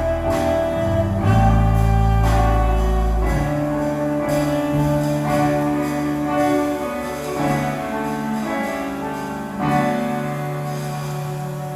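A small live band playing a slow song with electric bass, electric guitar, saxophone and keyboard, holding long chords; the sound tapers off near the end.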